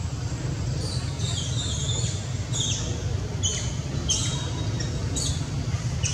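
A small bird calling: a series of short, high chirps, each sweeping downward, about one or two a second from about a second in, over a steady low rumble.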